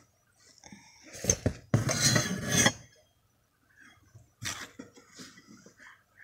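Stainless steel tumblers clinking and knocking in a box as its contents are handled, with a loud spell of handling noise about two seconds in and a shorter one later.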